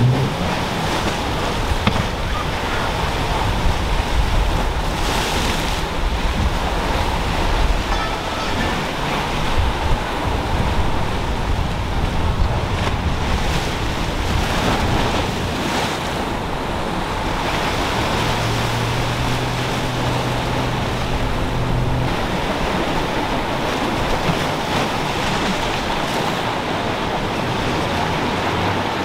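Waves breaking and surf rushing in rough inlet water, with wind on the microphone. Boat outboard engines run under the surf noise, and a steady engine drone stands out for a few seconds past the middle.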